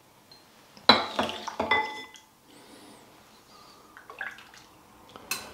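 Broth being ladled from a pot into a bowl: a metal ladle clatters and rings against the pot about a second in, with a splash of liquid. Lighter clinks follow, then a sharp click near the end.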